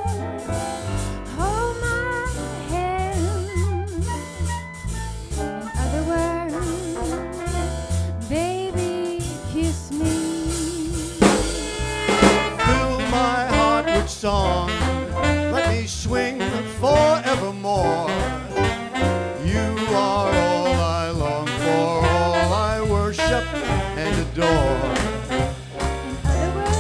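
Live swing band playing an instrumental passage over upright bass and drums. For the first half a single melody line with vibrato carries the tune. A sharp drum hit about eleven seconds in brings in fuller ensemble playing for the rest.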